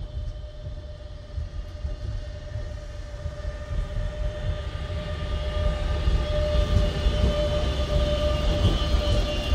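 DB Class 185 (Bombardier TRAXX) electric locomotive approaching and growing steadily louder: a steady whine of several fixed tones from its electric drive over a low rumble of wheels on the rails.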